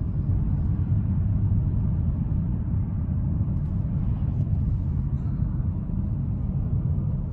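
Steady low road rumble and engine noise inside a moving car's cabin, driving at an even speed.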